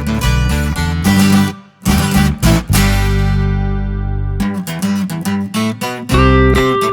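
Guitar-led music played loud through a PA sound system under test. The music drops out briefly about a second and a half in, then a chord is held for about a second and a half before the playing picks up again.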